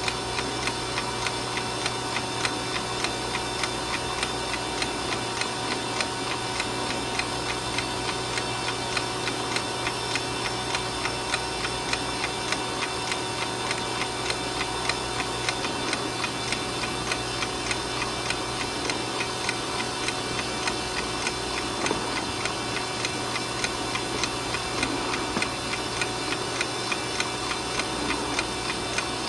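Westclox wind-up alarm clock movement ticking steadily and evenly, over a steady low hum.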